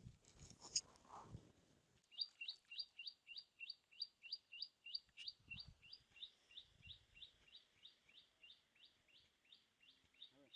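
A bird calling one short high chirp over and over, about three a second. It starts about two seconds in and slowly grows fainter, after a few faint rustles and knocks.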